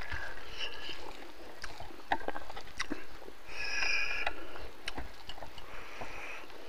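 Hand-eating sounds: scattered soft clicks and smacks from chewing, and fingers mixing rice and curry on a banana leaf. A brief high-pitched sound comes about halfway through.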